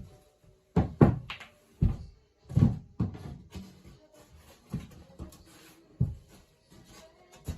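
Irregular knocks and thumps, about a dozen in all, the loudest in the first three seconds and lighter ones after.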